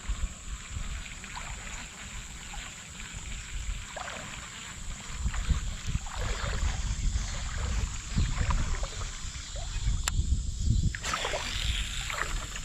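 Water sloshing and splashing around the legs of someone wading a creek, with an uneven low rumble on the microphone. There is a sharp click about ten seconds in.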